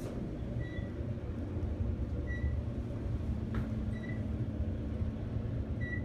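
Otis traction elevator cab descending: a steady low rumble of the ride, with short high beeps about every second and a half.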